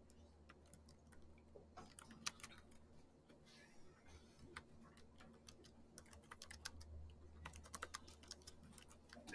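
Faint typing on a computer keyboard: a run of irregular key clicks, sparse at first and coming faster in the second half.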